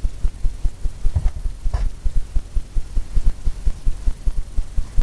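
Paintbrush working paint into a canvas on an easel, blending the wet-on-wet oil paint: a quick, even run of dull low thumps, about four or five a second.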